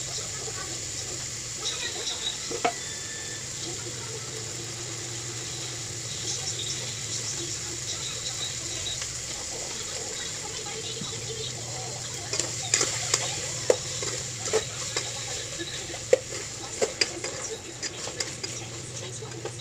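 Food cooking in a pan with a steady sizzling hiss while it is stirred. In the second half a utensil knocks and clinks against the pan many times.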